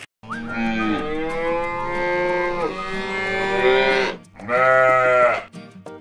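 Cow mooing twice: one long moo of about four seconds, then a shorter moo about a second long.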